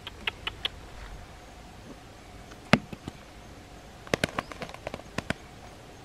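Scattered sharp taps and knocks: a few light clicks at the start, one loud knock nearly three seconds in, and a quick run of taps between about four and five seconds in.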